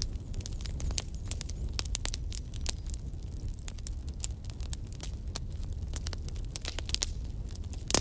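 Wood fire burning in a fireplace: irregular crackles and pops over a low, steady rumble of flame, with the sharpest pop near the end.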